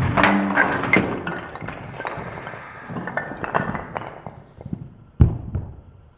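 Wooden toy blocks clattering and tumbling as two Lego Technic pull-back cars crash through a wall built of them. A rapid run of knocks fills the first four seconds or so, then a single heavier thud comes about five seconds in.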